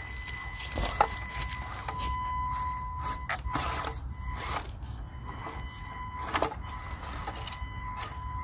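A small 1/18-scale electric RC crawler's 180-size motor and gears give a steady high whine as it creeps along. Its tyres make irregular crunches and snaps as they roll over dry leaves and twigs.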